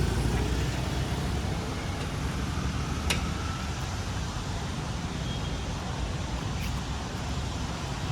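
Steady roadside traffic noise, with one sharp click about three seconds in.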